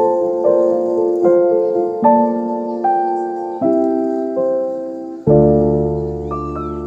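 Background piano music: slow chords played one after another, with a deep bass chord coming in about five seconds in.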